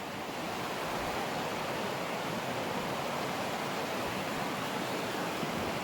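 Fast-flowing river water, a steady even rush.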